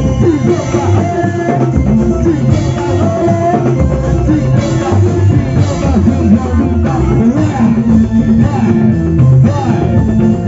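Loud Indramayu folk-band music with a steady drum beat and a wavering melody line, playing without a break.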